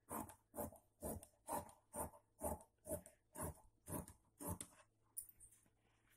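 Tailor's scissors snipping through cloth: about ten even cuts, roughly two a second, stopping about four and a half seconds in.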